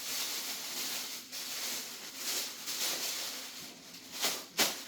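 Packaging rustling and crinkling as a hand rummages through a gift box, with two short, sharp crackles near the end.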